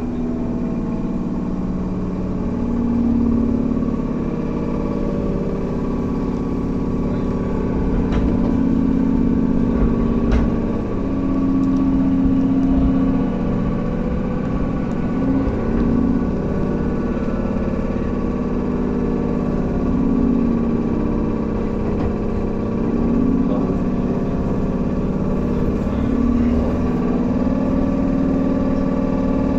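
Running sound of a Tobu 10000 series electric train, heard inside the car near its HB-2000 air compressor: a steady mechanical hum with sustained tones that swell and fade every few seconds.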